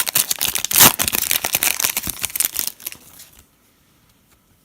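Wrapper of a 2018 Donruss Optic football card pack crinkling and tearing as it is ripped open, a dense run of crackles that stops about three seconds in.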